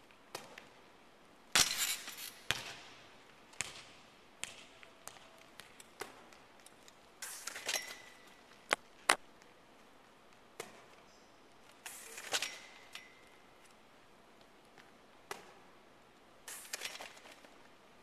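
Athletic shoes stepping, landing and squeaking on a hardwood gym court, a series of separate sharp thuds that echo in the large hall, with a brief squeal after two of them.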